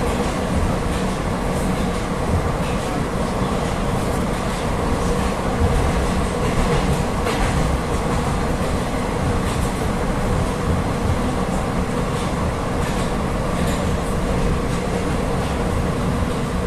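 Interior noise of a Rusich articulated metro train under way: a steady rumble of wheels on rail with a constant hum, and occasional light clicks from the track.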